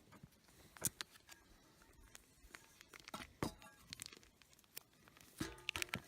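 A few scattered sharp clicks and knocks with light rustling and crinkling, from handling camp cooking gear and food.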